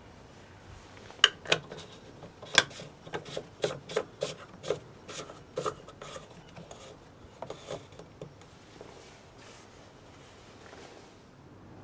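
Plastic coolant expansion tank cap being screwed down by hand onto the tank's plastic neck: a quick, irregular run of clicks and scraping from the threads for several seconds, thinning out and stopping as the cap is tightened.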